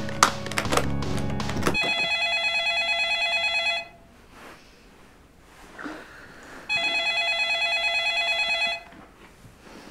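Music with sharp clicks stops about two seconds in. A cordless phone handset then rings twice, a rapidly pulsing electronic ring lasting about two seconds each time, with about three seconds of quiet between the rings.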